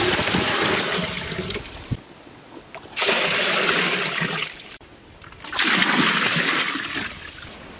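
Water poured from a clay pot, splashing into a bamboo-edged mud basin. There are three pours, each lasting a second or two.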